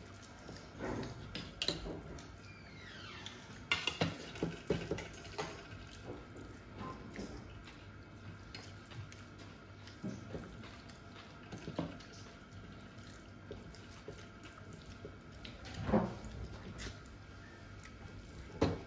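Eating by hand: irregular wet chewing and smacking sounds with light clinks of fingers and food against a plate, the loudest about four seconds in and again near sixteen seconds.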